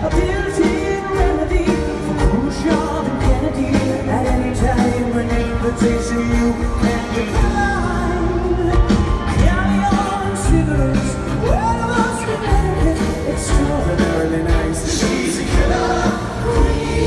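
Live rock band playing with a male lead singer, drums and electric guitar, heard from within the audience of a large arena.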